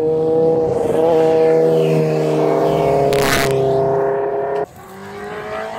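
Sport motorcycle engine held at high revs, a steady high-pitched engine note, with a short rushing burst a little after three seconds and a slight fall in pitch just before it cuts off abruptly.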